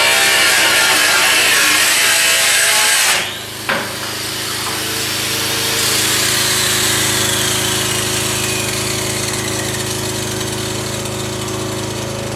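Angle grinder cutting through sheet-metal roofing, a loud hissing grind that stops abruptly about three seconds in. A falling whine follows as the disc spins down, over a steady low hum.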